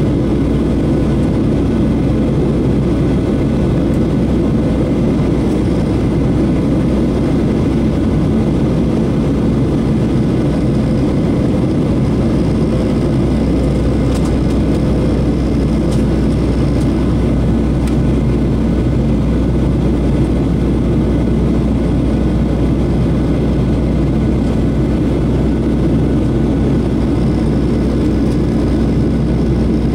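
Steady cabin noise of a Boeing 737-800 descending on approach, heard from a window seat beside the wing: the CFM56-7B jet engines and rushing airflow make an even, low-pitched drone with a faint steady hum in it.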